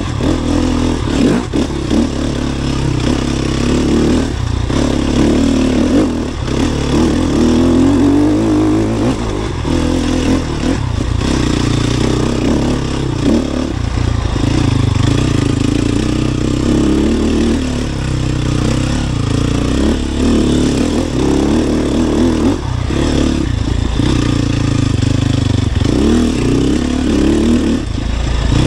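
Sherco 300 SEF's single-cylinder four-stroke engine under constant throttle changes on trail, revs rising and falling, with several short dips where the throttle is closed. Light rattling comes from the bike over rough ground.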